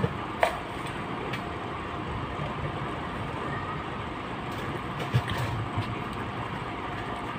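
Steady background noise, like machinery or traffic, with a few short clicks and rustles.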